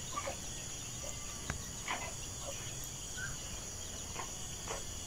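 A steady, high-pitched insect chorus, with a few faint taps scattered through it.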